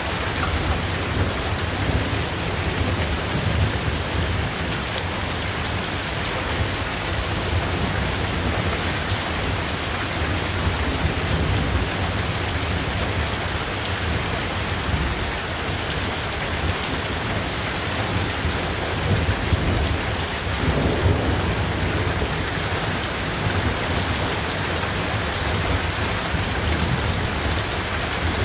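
Thunderstorm: heavy rain falling steadily while low thunder rumbles on underneath, swelling near the start and again about twenty seconds in.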